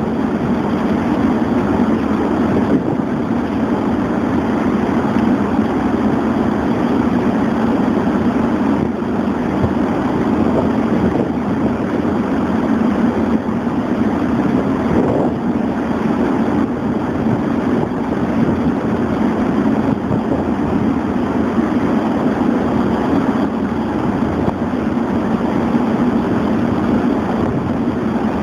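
Pilot boat's engines running steadily alongside the ship, an even drone mixed with rushing water, without a break or change.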